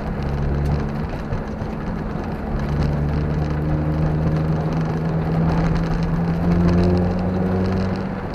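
Car engine running under load, heard from inside the cabin over steady road and wind noise; the engine note eases off briefly about a second in, then comes back and holds steady, rising slightly toward the end.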